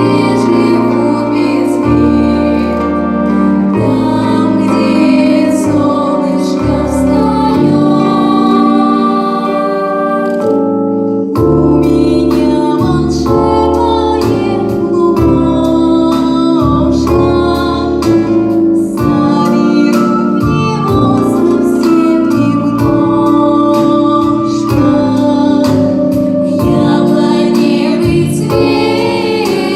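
A vocal group singing a song with instrumental accompaniment; the bass changes note every second or two, and the music briefly drops out about eleven seconds in.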